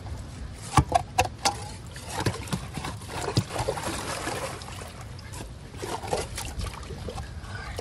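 Creek water sloshing and trickling, with a few sharp knocks and clicks in the first second and a half and another a little later.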